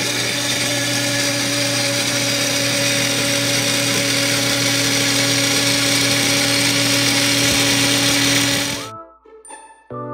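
Small personal blender motor running at a steady whir, liquidizing cilantro, green chili and garlic with water into a green chutney. The motor cuts off suddenly about nine seconds in.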